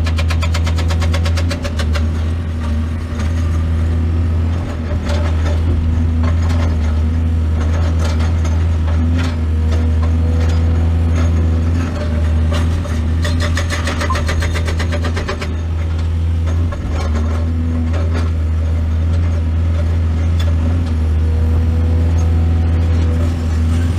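Heavy diesel excavator engine running steadily, with scattered clanks and rattles.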